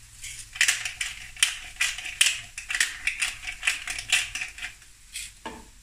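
Hand-twisted pepper grinder cracking black peppercorns: a run of sharp, crunchy clicks, a few a second, stopping about half a second before the end.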